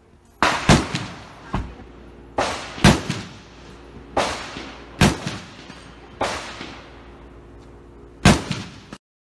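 Gunshots from shooters on an outdoor range's firing line: about nine sharp, irregularly spaced reports, each followed by a ringing echo that fades over a second or so. The sound cuts off suddenly near the end.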